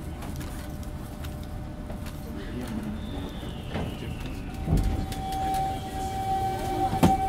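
Toei 5300 series subway train heard from on board: a steady low rumble, a high whine that falls in pitch about three seconds in, then a steady hum tone from about five seconds, with two short clunks.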